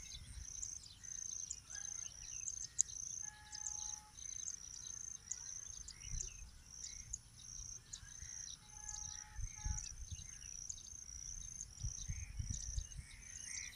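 A cricket chirping steadily, about two high-pitched chirps a second, with faint low knocks and rustling from handling underneath.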